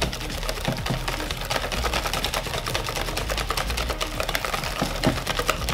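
Chocolate muffin batter being beaten fast by hand in a plastic mixing bowl: a quick, even run of clicking strokes of the utensil against the bowl, several a second. The still-lumpy batter is being beaten until creamy.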